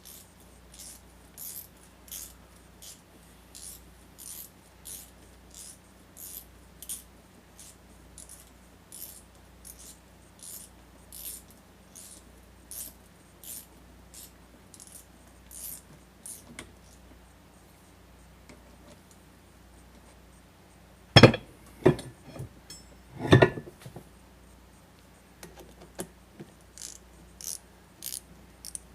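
Short metallic clicks repeating about one to two times a second, with a pause partway through, then two loud metal clanks about two-thirds of the way in and a few more clicks near the end: hand tools at work on metal parts.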